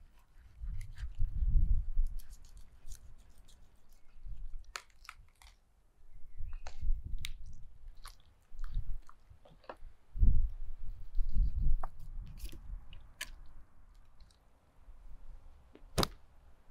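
Knife cutting and hands tearing through a raw sturgeon head's flesh, gills and cartilage: scattered sharp clicks and crackles with low rumbling bursts, and a single sharp knock near the end as a piece is set down on the wooden tray.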